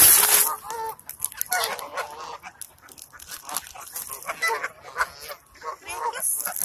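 A flock of Canada geese honking, many short calls overlapping throughout, after a brief loud rush of noise at the very start.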